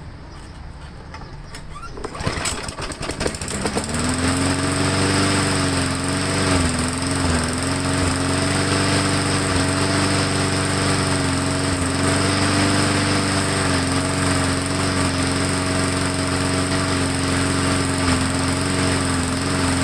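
Briggs & Stratton Classic single-cylinder lawn mower engine, pull-started about two seconds in. It catches and runs at speed with a slightly wavering pitch, then slows right at the end. It stays running only while it is kept primed and is not running right, which the owner suspects is a bad carburetor diaphragm and gasket.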